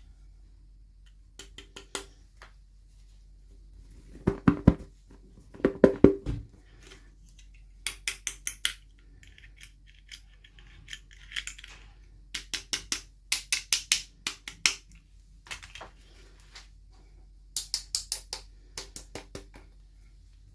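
Small hard plastic toy pieces and packaging being handled: quick runs of sharp clicks and taps, with two louder, duller knocks about four and six seconds in.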